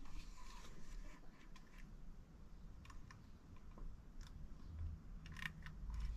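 Faint, scattered light clicks and rustles of small objects being handled, with a cluster of quick clicks about five seconds in.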